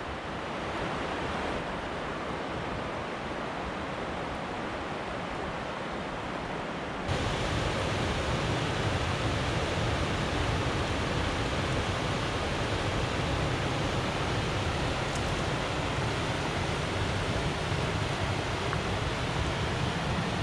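Steady rushing of a mountain river over rocks, a constant even hiss. About seven seconds in it jumps suddenly louder and fuller.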